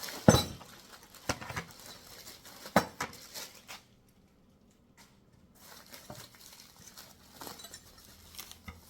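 Hard clinks and knocks as a bike repair stand's magnetic tool tray and its small hardware pieces are unpacked and handled. The loudest knock comes just after the start and a few more follow over the next three seconds. After a pause of about a second and a half, softer clicks and rattles go on.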